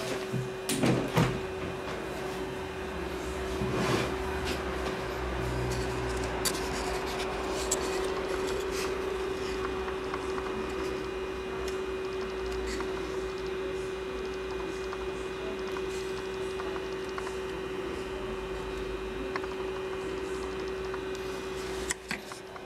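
Reflow soldering equipment running with a steady, even hum holding one constant tone. A few clicks and knocks come in the first seconds.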